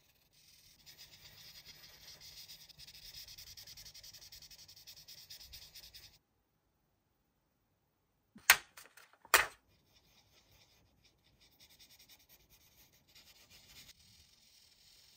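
Felt-tip marker rubbing across paper in quick back-and-forth strokes as a coloring page is filled in. After a short break, two sharp knocks about a second apart are the loudest sounds, and then fainter marker strokes on paper start again.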